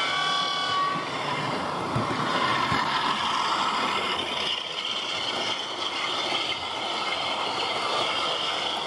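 Model Class 47 diesel locomotive's DCC sound decoder: a two-tone horn sounds and ends about a second in, then the recorded diesel engine runs steadily as the locomotive and its vans pass close by.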